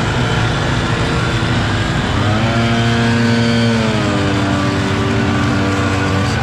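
Gas backpack leaf blowers and a truck-mounted leaf vacuum running together, loud and continuous. One engine's pitch rises about two seconds in, holds, then drops back a couple of seconds later.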